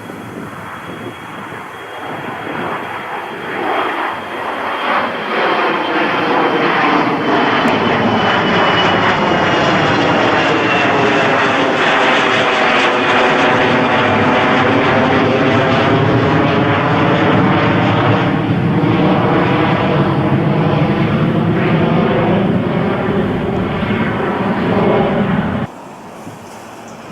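Airliner passing low overhead. Its engine noise builds over the first few seconds and then stays loud, with a thin high whine slowly falling in pitch. It cuts off suddenly near the end.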